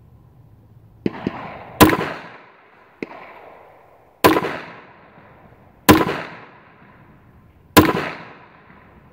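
Kel-Tec PMR-30 .22 Magnum pistol firing four loud, sharp shots about two seconds apart, each followed by a short echo. A few fainter pops come in between.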